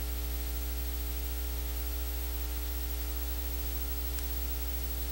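Steady electrical mains hum with a stack of overtones under a constant hiss, from the church's sound system or recording chain, with no other sound.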